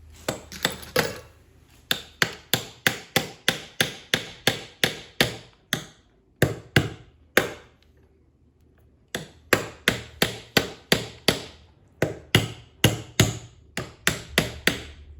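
Metal hammer blows driving a star nut down into a mountain bike fork's steerer tube, struck at roughly three a second in runs, with a few spaced strikes and a short pause about halfway through.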